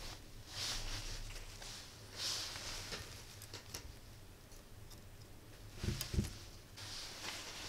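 Faint handling noises as the metal alligator clip of a helping-hands stand is positioned and a small component is fitted into it: light clicks and rustles, with a couple of soft knocks about six seconds in.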